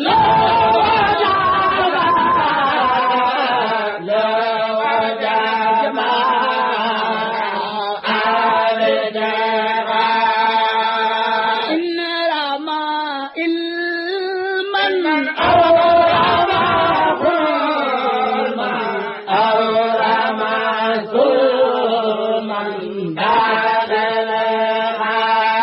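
Chanted recitation of a khassida, a Sufi devotional poem in Arabic, sung in long melismatic phrases over a steady held low note.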